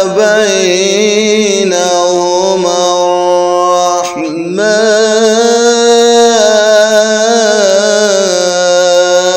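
A man reciting the Quran in the melodic, chanted tajwid style, drawing out the vowels of 'wa ma baynahuma' into long held notes. He takes a short breath about four seconds in, then holds another long note.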